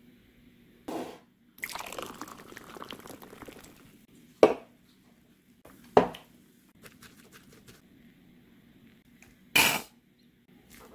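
Fizzy kombucha poured from a bottle into a glass, followed by a few sharp knocks of glass and bottle against the table.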